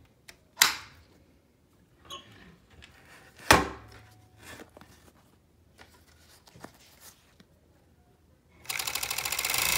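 Two sharp knocks and light handling, then near the end the Pegasus EXT 3216-03/233 industrial overlocker, driven by a servo motor, starts up and sews at speed with a loud, fast, even rattle.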